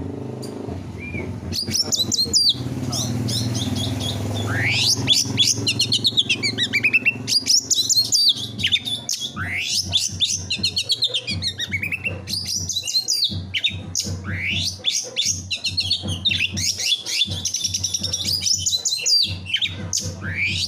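Canary singing rapid-fire trills and fast repeated chirps, the bursts Indonesian bird keepers call 'tembakan', over a low steady hum.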